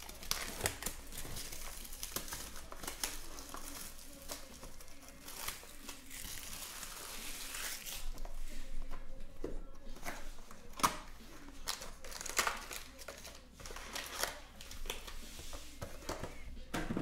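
Crinkling of a trading-card pack wrapper with sharp crackles as it is handled and torn open, and the cards shuffled in the hands.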